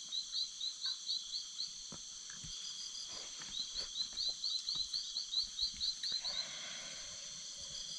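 A steady high drone of insects in the forest, with an animal calling in runs of short rising chirps, about four a second. The chirps stop a little under two seconds in and start again around three and a half seconds in, then stop once more a few seconds later.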